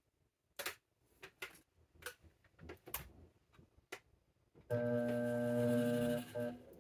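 A series of sharp clicks and taps, then an electric potter's wheel motor humming steadily for about two seconds as the wheel spins.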